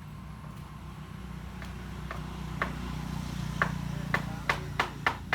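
Light knocks on a solid-wood bed frame as its legs are tapped into line, about nine sharp raps that come quicker and louder toward the end, over a steady low hum.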